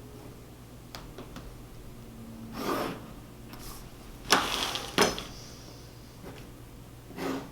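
Drafting tools being handled on a drawing board: a few light ticks, short scrapes of tools sliding across the board, and two sharp knocks about a second apart near the middle, the first running into a brief scrape.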